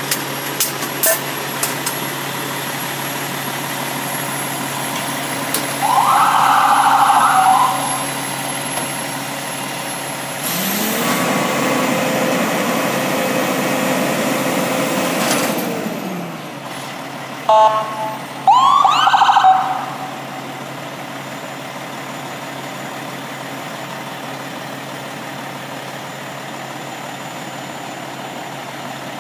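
Fire truck's diesel engine idling, its revs rising for about five seconds in the middle and then dropping back. Short high warning tones sound twice, once before and once after the revving.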